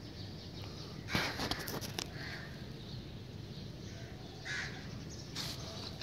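Outdoor background noise with a few short, harsh bird calls, a cluster about a second in and single ones near the end.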